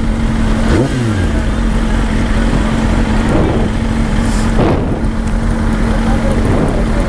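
Road traffic at a signal: engines idling with a steady hum and low rumble, and other vehicles passing by.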